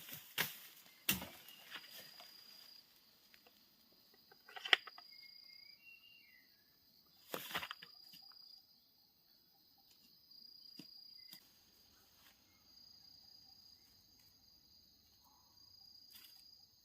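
An insect trilling on one high pitch in repeated stretches of about a second, with a few sharp knocks at the start and two louder rustling knocks midway.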